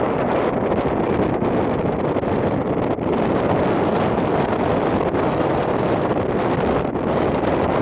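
Strong wind blowing hard across the microphone: a loud, steady rushing with no breaks.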